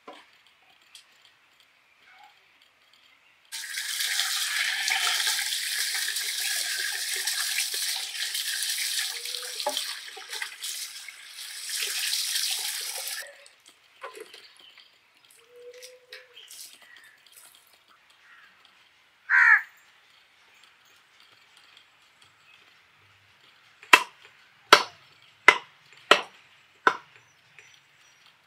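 About ten seconds of water splashing and pouring in a metal pot as a whole chicken is washed, then a bird's short falling call. Near the end, five sharp chops of a steel cleaver through chicken into a wooden log block, a little under a second apart.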